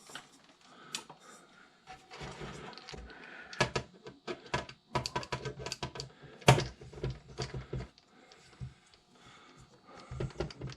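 Small Phillips screwdriver backing tiny screws out of a computer power supply's metal case, with irregular clicks, ticks and short scrapes of metal on metal. The screws stay snug all the way out, which he puts down to thread locker.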